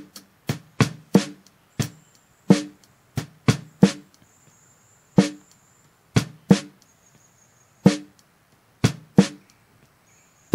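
Snare drum hits from a recorded drum-kit track, heard through a tightly set noise gate. Each hit is cut off quickly, leaving silence between the strokes. A tiny trace of hi-hat bleed still gets through.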